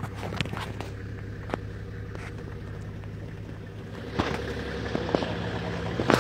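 Vehicle engine idling with a steady hum, with a few short clicks and knocks scattered through it.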